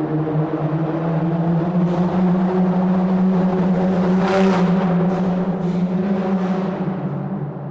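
Car driving through a tunnel: a steady, droning engine and road hum, echoing off the tunnel walls, that swells up and eases off near the end. Several brief hissing swishes come in the middle.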